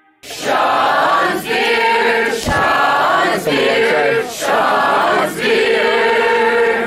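A group of voices singing together in unison, starting suddenly and going in short phrases about a second each with brief breaks between them.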